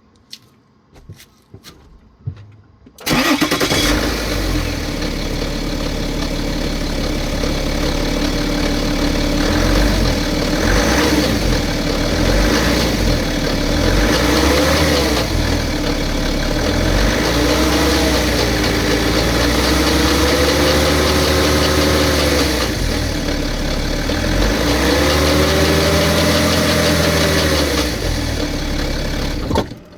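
BMW engine starting about three seconds in and running, with a few light revs in the second half, then switched off just before the end. The noise is put down to the timing chain.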